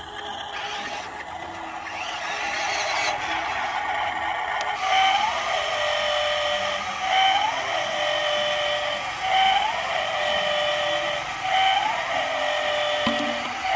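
The small electric motors of a WLtoys 16800 RC excavator whine as it works its arm and bucket. Every two seconds or so there is a quick rising note, then a steady whine held for about a second and a half. A single knock comes near the end.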